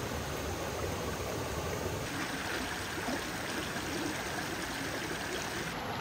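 Small forest stream running over mossy rocks, a steady trickle and gurgle of shallow water, its tone shifting slightly about two seconds in and again near the end.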